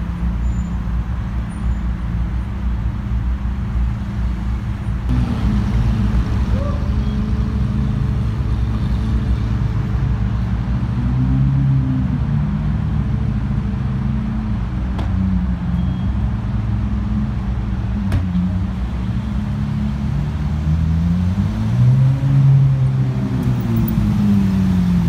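Supercar engines idling and crawling along in a slow line, a steady low drone. Engine pitch rises and falls back twice, about halfway through and again near the end.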